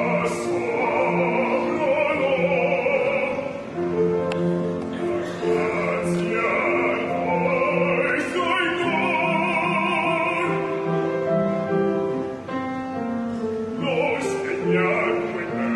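A male voice singing an operatic solo with vibrato, holding long notes in phrases broken by short pauses for breath.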